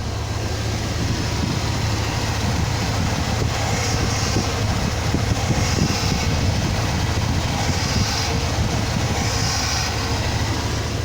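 Hydraulic power steering humming over the running engine as the steering wheel is turned: a steady drone with a hiss that swells several times. The owner traces the hum to seized kingpins and ball joints that make the front wheels very stiff to turn, loading the power steering.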